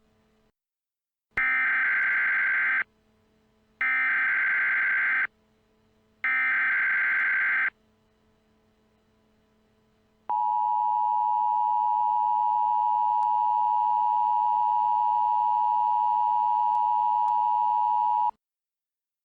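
Emergency Alert System alert opening: three short bursts of SAME header data, about a second and a half each with short gaps between them, then after a pause the steady two-tone EAS attention signal for about eight seconds, cutting off suddenly. The header bursts and attention tone mark the start of an emergency alert, ahead of its spoken message.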